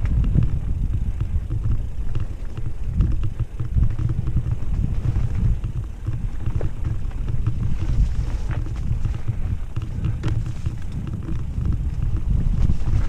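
Mountain bike riding a dirt singletrack: a steady low rumble of wind on the microphone and tyres on the trail, with scattered clicks and rattles from the bike over bumps.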